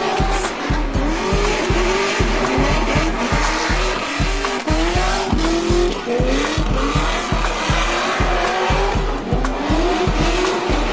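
V8-swapped Nissan Silvia drifting: the engine revs up and down repeatedly through its exhaust, with tyre squeal. Music with a steady heavy bass beat plays underneath.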